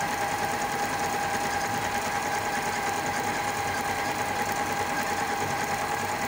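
Singer computerized sewing machine stitching through fabric at a steady speed, sewing its decorative pattern number 12: a steady motor whine with the rapid needle stitching.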